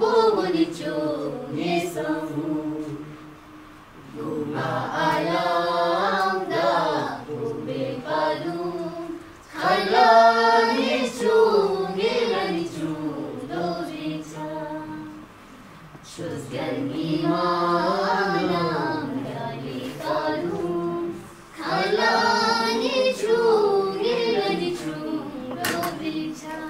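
Children's voices singing a song without instruments, in long sung phrases of about five seconds each with short pauses between them.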